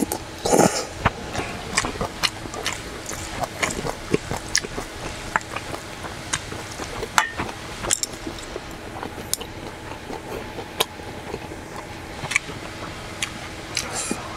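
A person slurping noodles in a short burst in the first second, then chewing with many small wet mouth clicks and smacks.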